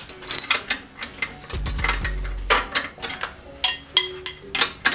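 Steel spanner clinking and knocking against the nuts and studs of an RB20DET turbocharger's manifold flange as the nuts are worked loose: irregular metal-on-metal clicks, some ringing briefly, coming thickest near the end.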